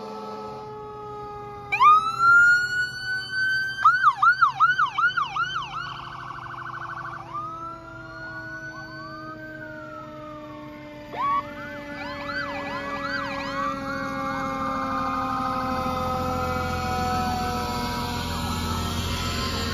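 Several fire trucks' sirens sounding together in procession: a siren winds up into a wail, rapid yelping sweeps come and go, and long tones slowly fall in pitch underneath. Near the end a heavy truck's engine grows louder as it passes close.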